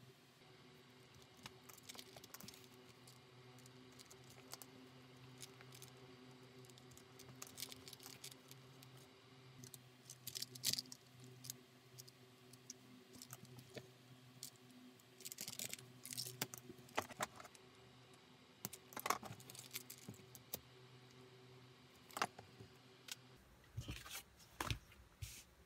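Hand-stitching leather: faint clicks and rustles of the needles, with several short rasps as the thread is drawn tight through the strap, over a low steady hum. Near the end a few soft knocks as a leather panel is handled on a cutting mat.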